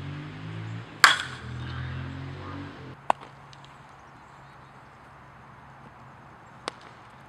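A metal baseball bat strikes a ball once, about a second in, with a sharp ringing ping, over a low droning hum. About three seconds in the hum stops, and two short, sharp clicks follow later.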